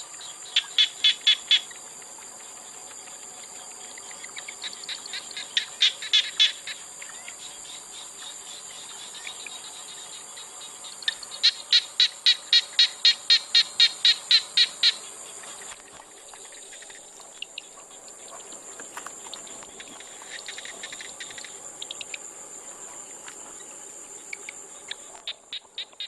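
Steady high-pitched insect drone, with runs of quick, sharp, evenly repeated bird calls at about four a second. The longest run lasts several seconds midway through.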